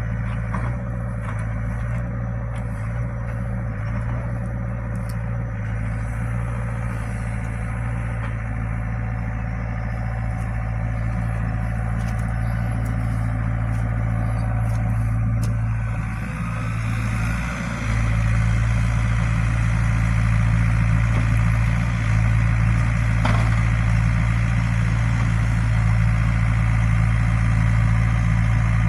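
Excavator's diesel engine running steadily, with a few faint clicks. The engine note dips briefly about two-thirds through, then comes back louder and stays louder.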